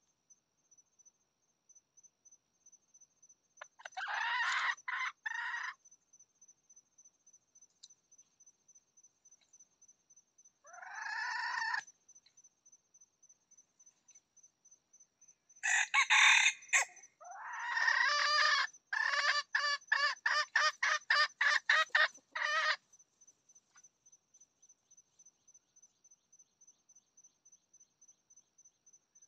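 Red junglefowl rooster calling: a short crow, a second crow, then a louder crow about halfway through followed by a fast run of short, evenly spaced clucks lasting several seconds.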